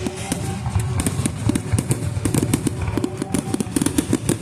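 Fireworks going off in rapid succession: a dense run of crackling pops and bangs with no break.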